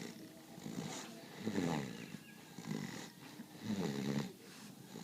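A goat snoring in its sleep: a pitched snore that repeats roughly once a second, about four times.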